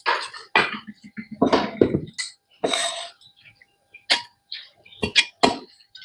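Irregular knocks and clinks of kitchenware being handled, about a dozen short strikes, a couple of them with a brief ring.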